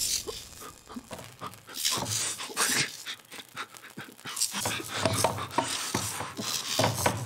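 A person panting heavily and unevenly in fear, with quick breathy gasps and short pauses between them.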